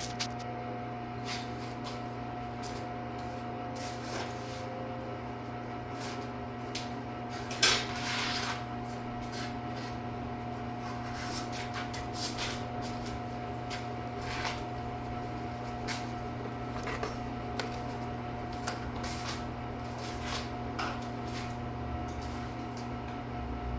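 Old AC/DC arc welding machine set at 50 amps: its transformer hums steadily while the welding arc crackles and spits irregularly, with a louder burst about eight seconds in.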